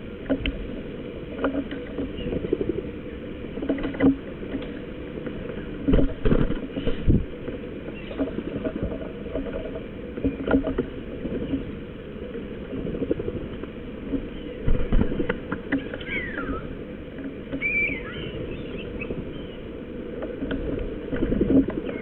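Iberian magpies at a feeder close to the microphone: irregular knocks, taps and thumps as they land, flap and peck at a carcass, with a few short high bird calls between about 16 and 18 seconds in.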